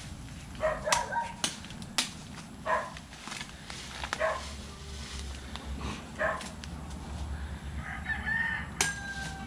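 Chickens clucking in short calls and a rooster crowing, mixed with several sharp knocks.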